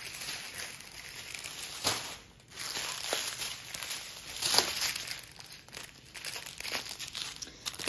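Thin plastic packaging crinkling and rustling as the small bags of diamond-painting drills are handled and sorted, with a short break about two seconds in.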